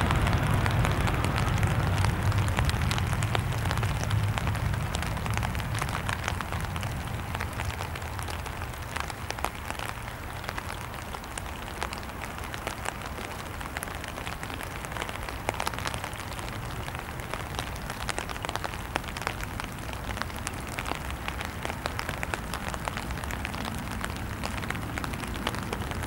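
Cessna Citation XLS's twin turbofan engines at takeoff thrust, heard from behind as the jet climbs away: a low rumble that fades over the first several seconds, with a dense crackling noise that carries on after the rumble has died away.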